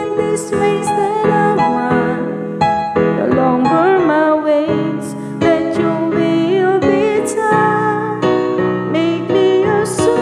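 Worship song played on electric piano, with a voice singing a wavering, held melody over the keyboard chords.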